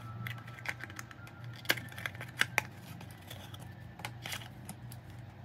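Small hand tools clicking and tapping against a phone's parts during repair: scattered light clicks, with a few sharper ones near the middle, over a low steady hum.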